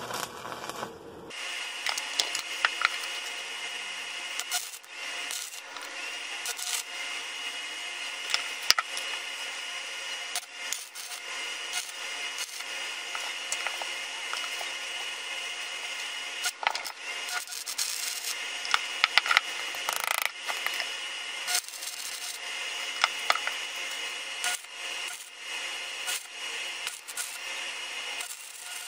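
Stick (electrode) arc welding on a bent steel tube: a steady crackling hiss of the arc with scattered sharp pops, breaking off briefly a few times between welds.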